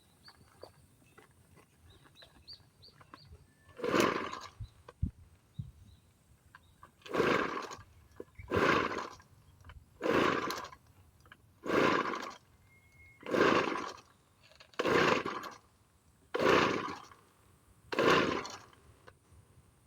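Kioritz SRC315 brush cutter's two-stroke engine being cranked by its recoil starter nine times, each pull a rasping 'shaa-shaa' whoosh of under a second, which is the abnormal noise of this faulty unit. The engine never fires; its spark plug gives no spark.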